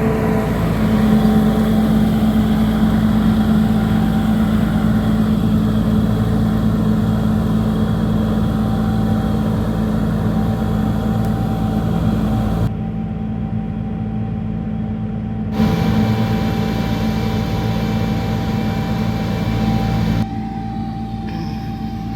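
Engine of an almond harvesting machine running steadily, a low hum with a higher steady whine over it. The sound changes abruptly about thirteen, sixteen and twenty seconds in, as at cuts between shots.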